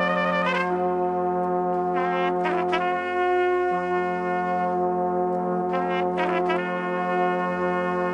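Brass music playing from a television: long held chords, with short runs of changing notes about two seconds in and again about six seconds in.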